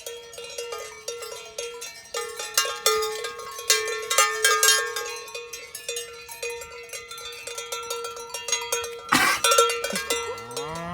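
Cowbells on grazing cows clanking and ringing irregularly as the cattle move. Near the end a cow lows with a call that rises in pitch.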